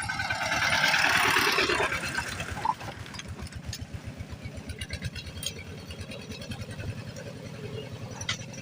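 Small engine running steadily at a fast, even beat, with a louder hiss in the first couple of seconds.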